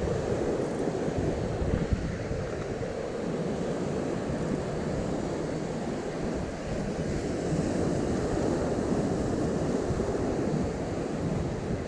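Ocean surf washing and breaking over shoreline rocks, a steady rushing noise, with wind buffeting the microphone.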